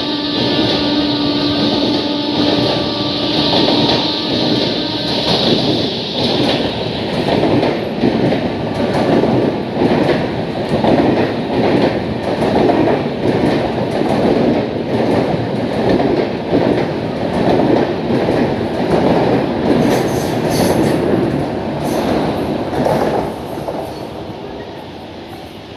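Passenger train passing at speed, its wheels clattering over rail joints in a steady rhythm, with steady tones from the locomotive in the first few seconds. The sound fades away near the end.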